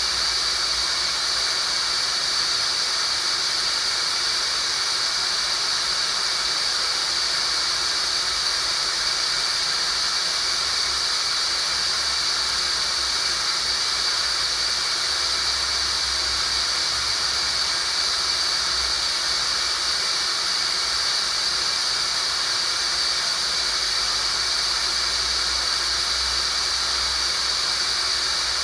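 Tinnitus sound-therapy track: a steady, unchanging hiss with a bright high-pitched band standing out in it.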